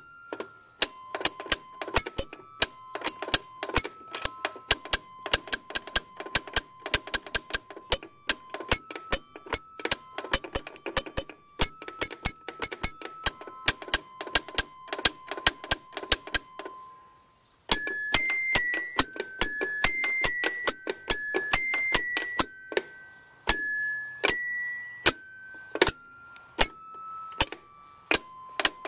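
Little Tikes toy piano with metal tone bars, its keys struck in quick succession so that short ringing notes follow one another, several a second. About two-thirds of the way through there is a brief break, and after it the notes sit higher.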